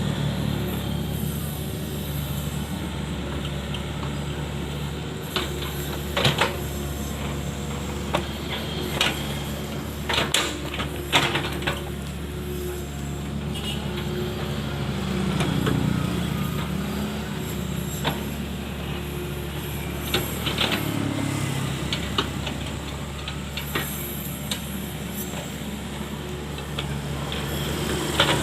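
Mini excavator's diesel engine running steadily, swelling once around the middle, with scattered sharp knocks and clanks.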